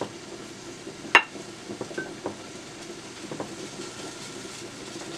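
A pork chop being pressed and turned by hand in a dish of flour for battering: soft handling with a few light knocks against the dish, one sharp click about a second in.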